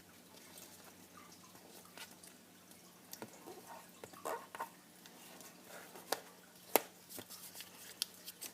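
Square origami paper being folded and creased by hand: scattered sharp crinkles and taps, the loudest a crisp snap a little before 7 s in.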